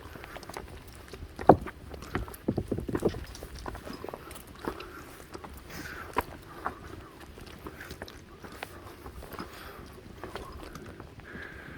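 A hiker's footsteps on trail, with irregular sharp clicks and knocks, the loudest about a second and a half in and a quick run of them around three seconds in.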